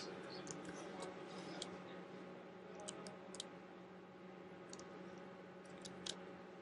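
Faint, scattered clicks of computer keys being pressed, about a dozen light taps in uneven clusters, over a steady low hum.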